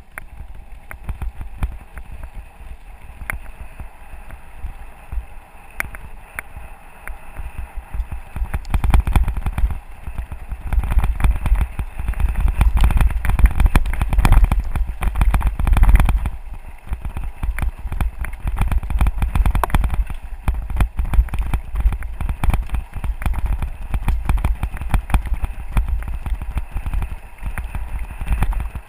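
Mountain bike rolling down a loose-gravel forest road: tyres crunching and the bike rattling over the stones, with a constant low rumble. It grows louder about a third of the way in and is loudest around the middle, on the rockiest stretch.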